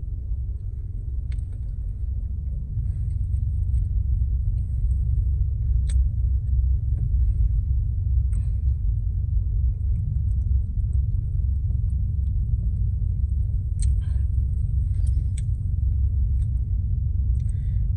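Car engine idling, heard from inside the cabin as a steady low rumble, with a few faint clicks.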